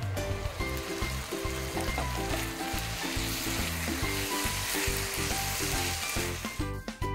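Chicken, onion and sweet pepper frying in a pan, a steady sizzle, with a spatula stirring through the filling. The sizzle fades out near the end, leaving background music.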